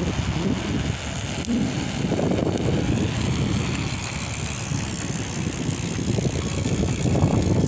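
Strong wind buffeting the microphone of a phone on a selfie stick as a BMX bike rolls into a headwind: a loud, rough, fluttering rumble.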